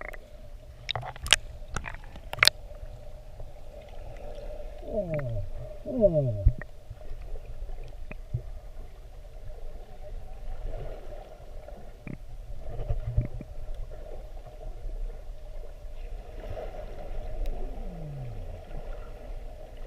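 Sea sound heard underwater while snorkelling: a steady low hum with muffled gurgling, a few sharp clicks in the first few seconds, and several falling whooping sweeps.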